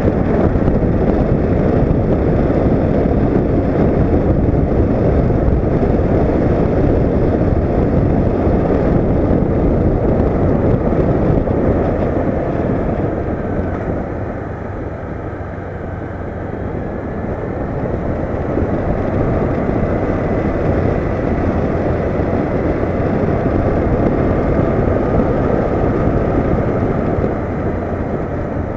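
Riding sound of a Honda CB500X's parallel-twin engine under heavy wind rush on a bike-mounted action camera's microphone, with faint engine tones shifting in pitch. The rush eases about halfway through and then builds again.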